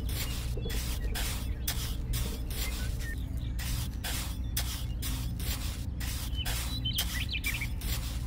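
Small trowel scraping and smoothing wet cement in quick repeated strokes, about two or three a second, over a steady low hum.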